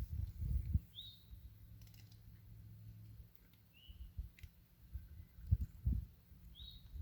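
A bird gives three short chirps a few seconds apart, each a quick high note, over an irregular low rumbling on the microphone.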